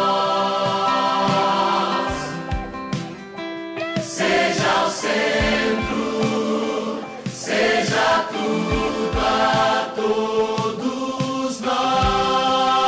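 Choir singing a Portuguese Christian worship song over instrumental backing, with a thinner, quieter passage about three seconds in.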